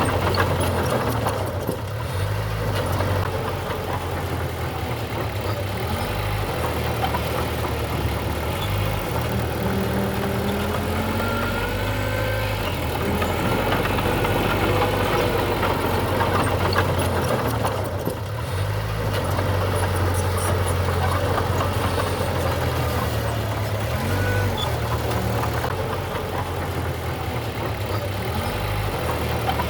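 Heavy diesel engine of earthmoving machinery running, its pitch stepping up and down as the load changes, with brief whining glides near the middle.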